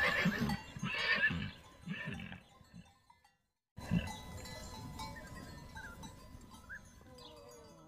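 A horse: a whinny trailing off into a low pulsing sound for about two and a half seconds, then after a short break a quieter stretch of horse sound.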